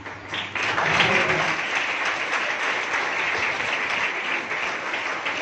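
Audience applauding, breaking out a moment in and continuing steadily.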